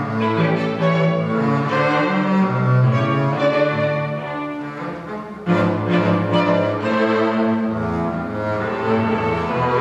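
Solo double bass and string quartet (two violins, viola and cello) playing a bowed chamber piece together. About halfway through, a softer passage gives way to a sudden, loud entry of the full ensemble.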